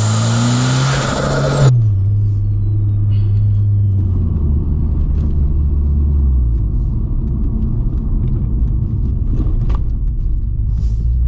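Car engine pulling hard with its pitch climbing and a high whine rising over it. About two seconds in, the whine cuts off sharply and the engine note falls away, settling into a low steady drone as the car runs on at lower revs.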